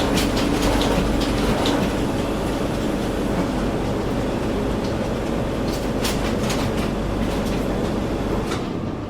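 Printing machinery running: a dense, steady mechanical clatter with a low hum and scattered sharp clicks. Near the end the low hum drops away.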